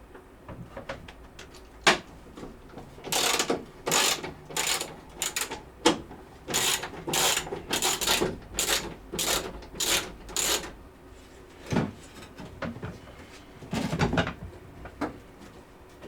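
Ratchet wrench clicking in a run of short strokes, about two a second, unscrewing the spark plugs from a VAZ-2107 engine, with a few separate tool knocks.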